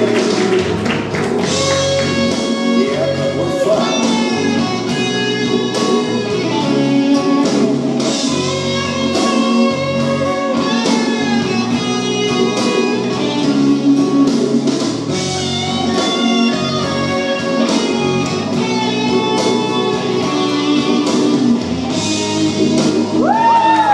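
Music: an instrumental passage of a slow song led by electric guitar over bass and a steady beat, with a singing voice coming back in at the very end.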